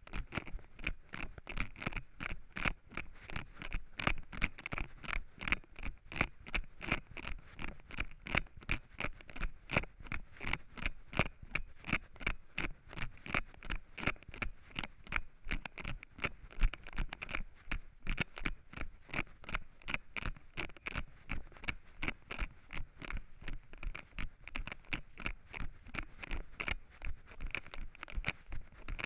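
Running footsteps crunching through dry fallen leaves on a forest trail, a steady quick rhythm of about three strides a second.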